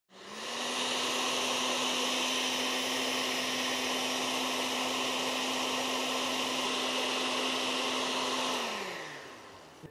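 Oster Professional Series blender running a milkshake: switched on, it comes up to speed at once and runs with a steady hum, then is switched off near the end and winds down, its pitch falling as it fades.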